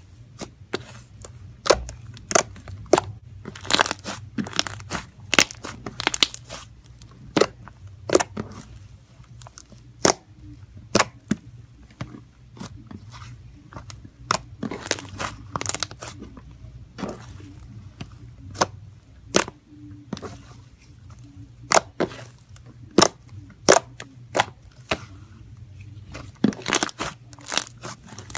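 Pale blue slime squeezed and folded by hand, giving off sharp crackling pops, irregular, about one to two a second.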